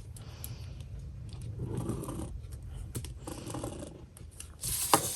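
Scissors cutting through folded paper, rasping in a few short stretches, with a louder burst and a sharp snip near the end.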